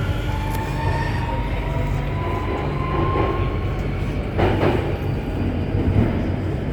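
Alstom Metropolis C830C metro train running on the Circle Line, with a low steady rumble and a thin whine that rises slowly in pitch as it picks up speed. Two short knocks come about four and a half and six seconds in.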